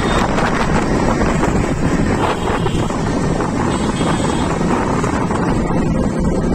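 Steady wind noise buffeting the microphone, mixed with road rumble from a moving battery-powered auto-rickshaw (easy-bike).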